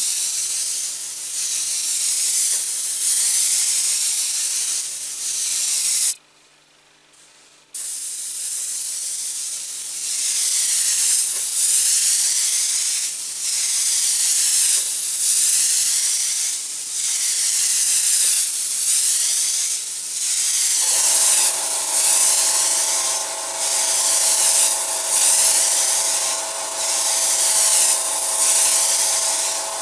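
Airbrush spraying paint in repeated passes: a loud hiss that eases off briefly every second or two as the trigger is worked, and breaks off for about a second and a half near the start. About two-thirds of the way in, a steady hum joins the hiss.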